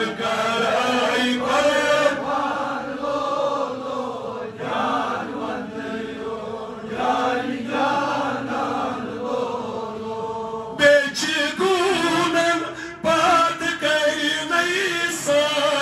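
A male voice chanting a Kashmiri naat, a melodic devotional recitation in praise of the Prophet Muhammad. About eleven seconds in, the voice turns louder and brighter.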